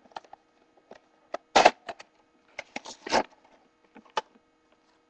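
A retail package being opened by hand: irregular clicks, snaps and rustles, with the loudest crackles about a second and a half in and around three seconds in.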